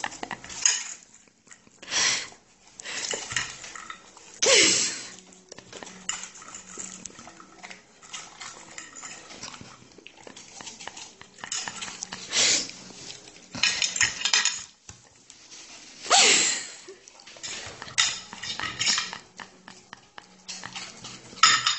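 A dog eating macaroni from a dish, with irregular bursts of clinking and scraping against the dish.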